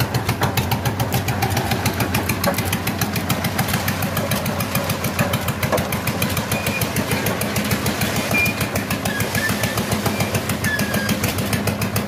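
Concrete mixer's engine running steadily with a fast, even beat while the drum turns.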